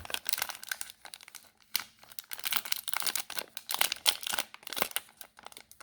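Plastic wrapper of a trading card fat pack being torn open and crinkled by hand: irregular crackling in two stretches, a short one at the start and a longer one from about two seconds in.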